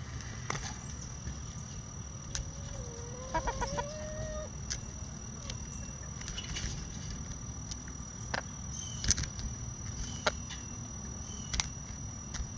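Bantam chickens pecking at a hanging cabbage, sharp taps every second or so, with one low chicken call about three seconds in that rises slightly in pitch over a second and a half.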